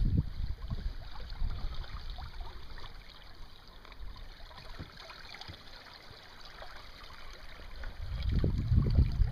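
River water trickling and lapping against a drifting inflatable boat, with faint small splashes. A low buffeting rumble of wind on the microphone at the start and again for the last second or so.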